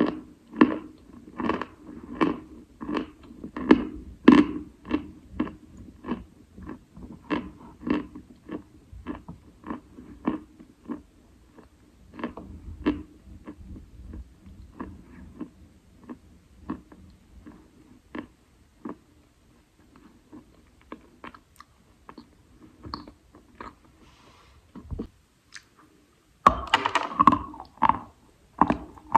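A person chewing wet Khrapovsky chalk, with steady crunches about twice a second. After a short pause near the end comes a louder, denser burst of crunching, like a fresh bite.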